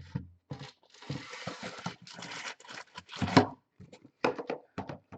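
Packaging rustling and crinkling as it is handled, with a string of light knocks and clicks.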